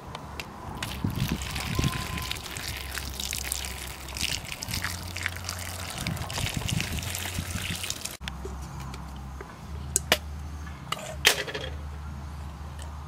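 Water poured from above over a handful of leaves, trickling and splashing as they are rinsed by hand. After a cut, a few sharp clicks as the leaves are put into an empty aluminium drink can.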